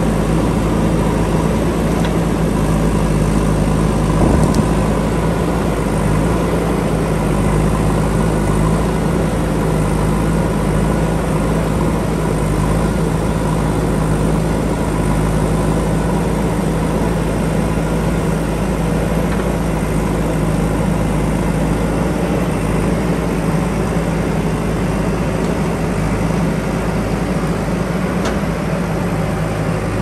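JCB backhoe loader's diesel engine running steadily, a low even drone, while the rear backhoe arm digs into the hillside. There is one brief knock about four seconds in.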